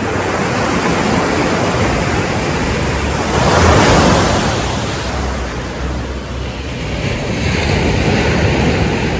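Small sea waves breaking and washing up a sandy, pebbly shore, one surging loudest about three and a half seconds in, with wind rumbling on the microphone.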